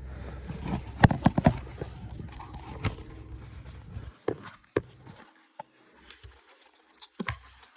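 Handling noise from a dropped phone being picked up and repositioned: a quick cluster of knocks and clatters about a second in, a low rumble of rubbing on the microphone that stops suddenly partway through, then a few lighter taps.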